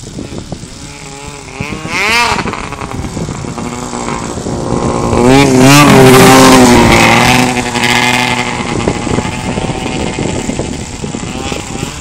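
Snowmobile engine revving up about two seconds in, then running close by with its pitch wavering, loudest around the middle before it eases off.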